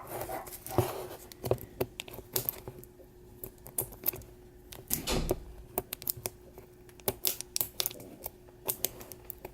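Irregular clicks and taps of hands handling small objects and packaging, over a faint steady hum.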